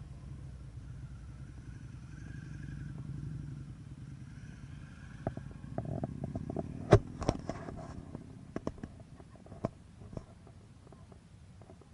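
A motorcycle engine rumbling low, swelling a little then fading after about five seconds, followed by a string of sharp, irregular knocks and clicks, the loudest about seven seconds in.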